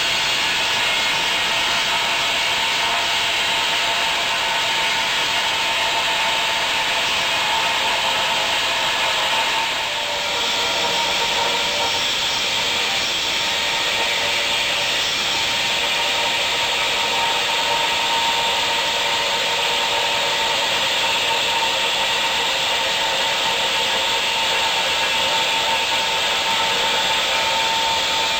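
Angle grinder with a thin cut-off disc cutting through steel plate: a steady loud hiss with a held whine, dipping briefly about ten seconds in.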